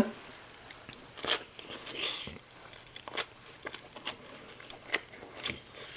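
A person chewing and biting into food, with a handful of short crunches and mouth clicks spaced irregularly.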